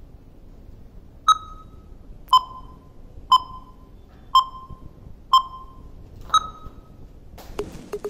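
Workout interval timer counting down with six short electronic beeps about one second apart. The first and last beeps are a little higher in pitch and the last marks the end of the interval.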